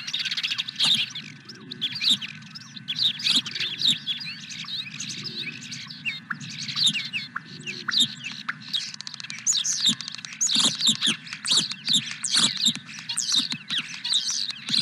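Many birds chirping and singing at once in a dense, overlapping chorus of short, quick notes, over a steady low rumble.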